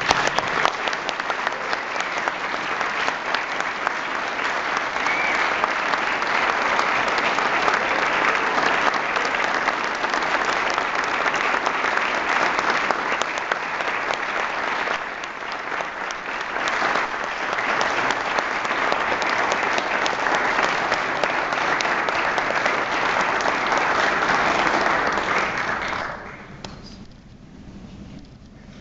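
Audience applauding, with one pair of hands clapping close by; the applause stops fairly suddenly near the end.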